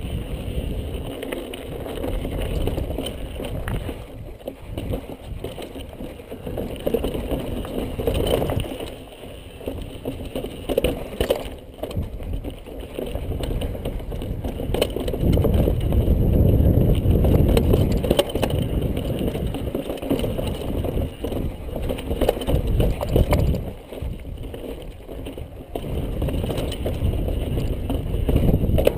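Mountain bike descending a rocky trail, heard from a chest-mounted camera: tyres rumbling and clattering over stone and gravel, with rattles and knocks from the bike and wind buffeting the microphone. It is loudest through the middle stretch.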